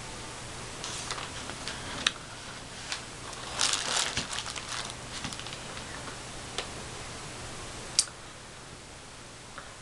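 Handling noise: rustling of clothes and hands with scattered sharp clicks, densest about four seconds in as the arms reach toward the camera, and one more sharp click near the end. A faint steady hum runs underneath.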